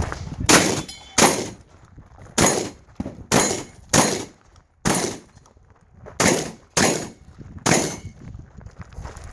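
Shotgun fired about nine times at uneven intervals. Each shot is a sharp blast with a short echo, fired in quick pairs and singles.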